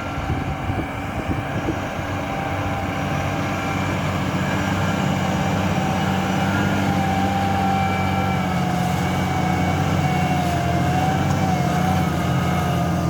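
Large farm tractor's diesel engine running steadily under load while ploughing, with a wavering whine above the engine note.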